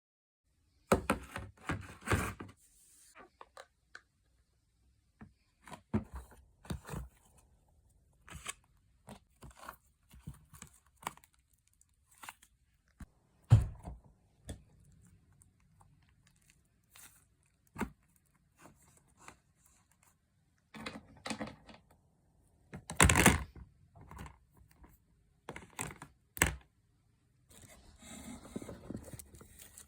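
Hands packing small toys into a package: intermittent rustling and crinkling of packaging, with sharp knocks as things are set down or handled. About halfway through comes one loud knock, and about 23 seconds in a louder ripping sound lasting under a second.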